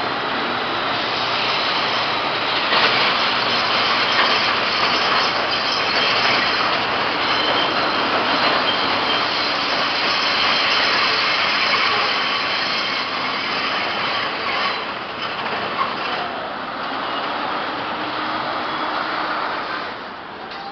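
Subway train running over the steel elevated structure overhead, a long loud clattering rumble with faint wheel squeal, easing off in the last few seconds.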